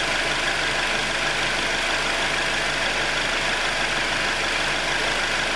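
2021 Jeep Wrangler's 2.0-litre turbocharged four-cylinder idling steadily, settled into its normal idle after the cold-start ticking cycle has passed.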